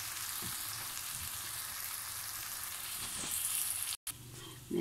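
Bitter gourd and onion curry sizzling steadily in oil in a non-stick kadai over a gas flame. The sound breaks off abruptly about four seconds in.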